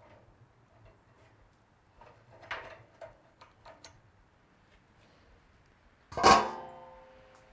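Light metal clinks and knocks as rib hooks are hung back on the rebar rods inside a Pit Barrel smoker, then the metal lid is set down on the steel drum about six seconds in with a loud clang that rings and fades over about a second.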